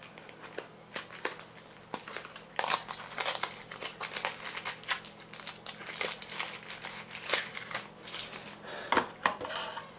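Foil wrapper of a Yu-Gi-Oh! booster pack crinkling as it is opened and handled, an irregular run of sharp crackles.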